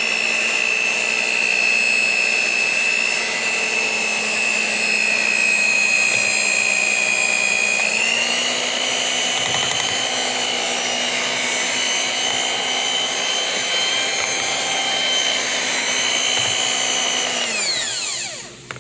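An electric mixer's motor runs with a steady whine and steps up to a higher speed about halfway through. Near the end it is switched off and winds down.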